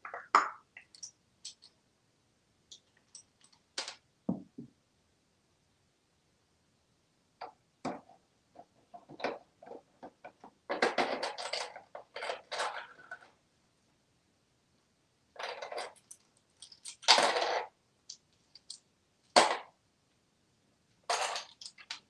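An African grey parrot rummaging with its beak in a plastic cash tray of toy money: scattered clicks and clinks of coins and plastic, in short bursts with longer clattering spells in the middle and later on.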